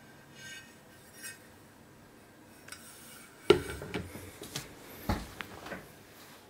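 Length of steel angle set down on the bench with one sharp metal clank, followed by several lighter clinks and knocks as it is shifted into place.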